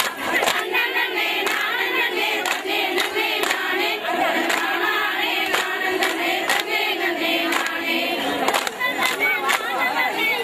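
A group of women singing together in chorus, keeping time with sharp hand-claps about every half second to a second, as in a Tamil kummi clapping dance.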